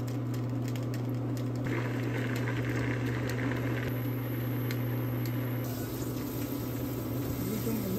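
Chicken stew boiling in a stainless-steel pot on an induction cooktop, over a steady low hum, with a few light clicks.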